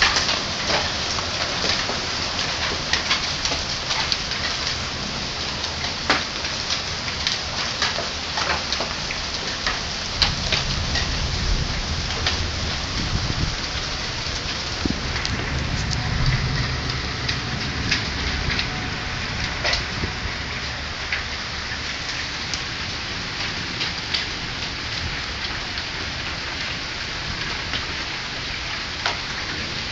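Hail falling on a lawn and patio: a steady hiss of the storm with many sharp clicks of individual hailstones striking. A deeper rumble swells in the middle.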